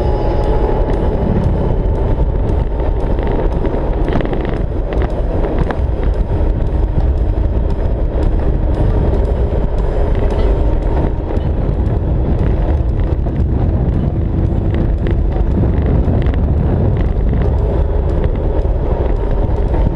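Motorcycle running steadily at road speed, its engine and road noise mixed with wind buffeting the bike-mounted microphone.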